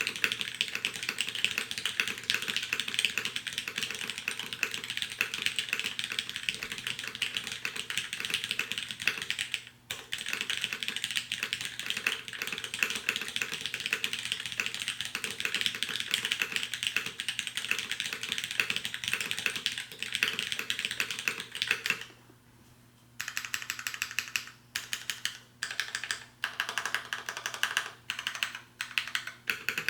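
Fast, continuous typing on a custom mechanical keyboard with lubed MX Black linear switches on a full aluminium plate and DCS keycaps. After a short pause about two-thirds in, single keys are pressed one at a time with gaps between them, typical of testing the modifier keys.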